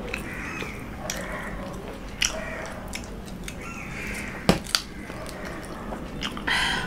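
Mouth sounds of people eating curry and flatbread by hand: chewing, biting and lip smacks, with scattered small clicks and one sharp knock about four and a half seconds in.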